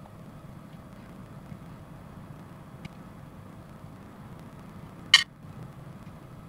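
Hobby side cutters snipping a part off a plastic model-kit sprue: one sharp snip about five seconds in, with a faint click a couple of seconds before, over a low steady hum.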